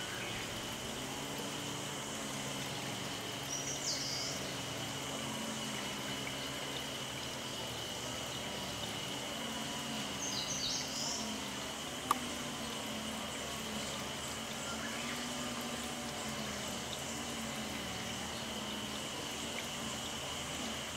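Steady outdoor background noise with a constant high-pitched tone, broken by brief high chirps of small birds about four seconds and ten seconds in. A single sharp click sounds about twelve seconds in.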